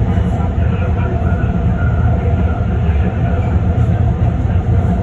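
BART Fleet of the Future train running at speed, heard from inside the car behind the cab: a steady low rumble of wheels on rail.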